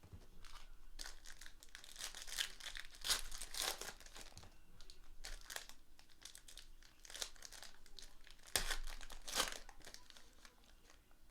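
Plastic trading card pack wrappers being torn open and crumpled, an irregular crinkling and ripping with a few louder tears.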